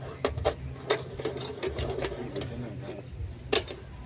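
Sharp metal clicks and knocks as a steel rebar is shifted and clamped in the vise of an abrasive chop saw, the loudest knock about three and a half seconds in, over a steady low hum.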